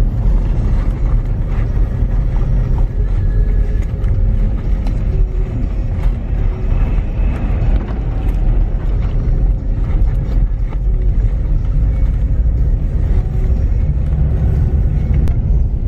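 A car driving through a snowstorm, heard from inside the cabin: a steady low rumble of engine, tyre and wind noise.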